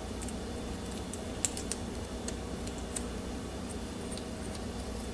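Light, scattered metallic clicks and ticks of small Glock striker parts (skeletonized striker, striker spring and spring sleeve) handled and fitted together by hand, over a low steady hum.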